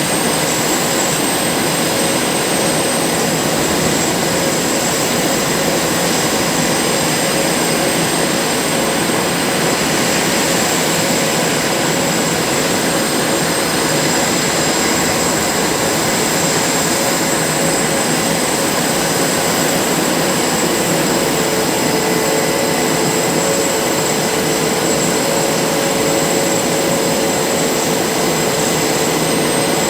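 Jet engines of Blue Angels F/A-18 Super Hornets running steadily: a loud, even rush of turbine noise with high, steady whining tones. A lower tone joins about twenty seconds in.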